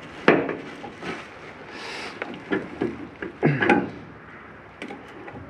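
Pliers wrenching at a link of the muck-covered roller chain on a Zago feeder: a few sharp metal clicks and clunks as the link is forced until it breaks.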